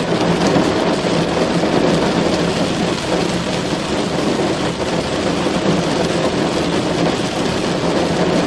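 Rain drumming on a car's roof and windows, heard from inside the cabin: a dense, steady patter.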